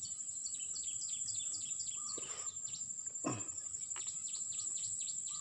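Steady high-pitched insect drone, with two runs of quick falling bird chirps, about eight a second: one in the first two seconds and another in the last two. A brief swish comes a little over three seconds in.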